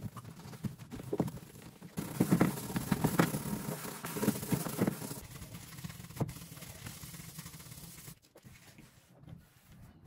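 Wet sponge scrubbing the plastic inside of a refrigerator: irregular rubbing strokes, loudest a couple of seconds in and growing quieter after about eight seconds.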